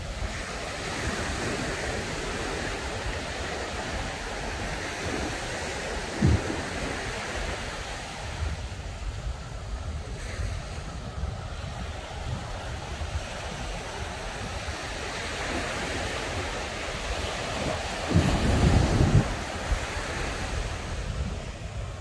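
Ocean surf breaking and washing up the beach in slow swells, with wind buffeting the microphone in low rumbling gusts, briefly about six seconds in and more heavily near the end.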